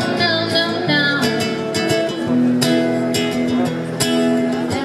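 Acoustic guitar strumming chords in a live song between sung lines, with a short sung note in the first second.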